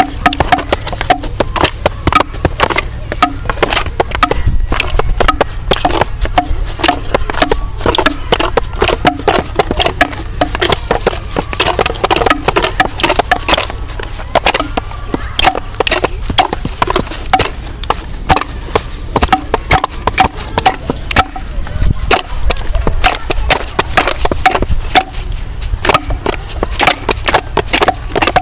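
Sticks knocking and clacking on wooden logs and branches, a dense irregular clatter of many wooden knocks a second played as improvised percussion.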